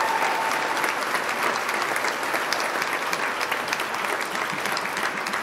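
Audience applauding: many hands clapping in a dense patter that slowly tapers off near the end.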